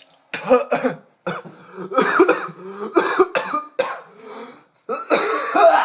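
A man coughing and clearing his throat, with strained voiced sounds between: two short sharp coughs near the start and a loud one near the end. He is reacting to the burning heat of ghost pepper fries.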